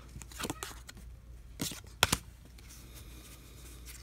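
Pokémon trading cards handled out of a freshly opened booster pack: a few short, crisp card snaps and rustles, the sharpest about two seconds in.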